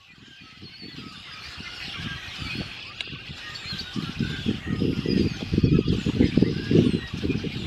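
A large mixed flock of red-winged blackbirds and starlings calling all at once: a dense, continuous din of chatter and whistles. A low, irregular rumble grows louder about halfway through.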